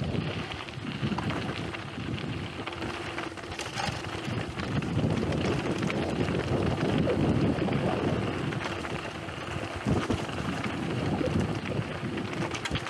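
Wind rushing over the microphone and tyres crunching over loose gravel as a mountain bike rolls downhill, with a few sharp knocks and rattles from the bike over stones.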